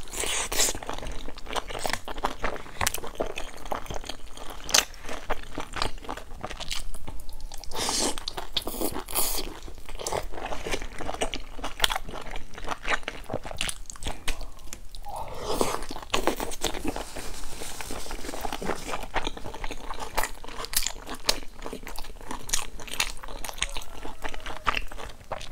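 Close-up chewing and crunching of pan-fried stuffed buns with crisp browned skins: bite after bite, dense irregular crackles and mouth sounds.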